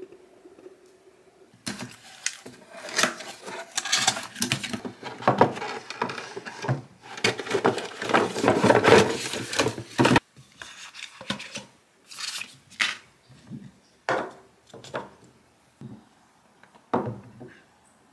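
Cooking utensils being unpacked: cardboard and paper packaging rustling while the utensils clatter against each other, busiest and loudest a few seconds before the middle. After a sudden stop, a string of separate light knocks follows as the utensils are handled and set down on the counter.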